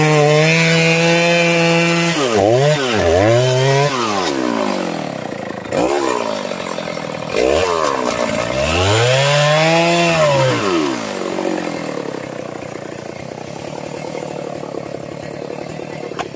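Stihl two-stroke chainsaw cutting into a mahogany trunk at full throttle, then revved up and down several times, with the pitch swooping up and falling back. It goes much quieter for the last few seconds.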